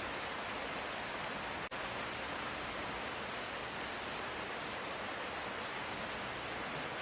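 Steady hiss of light rain, even and unbroken apart from a momentary dropout a little under two seconds in.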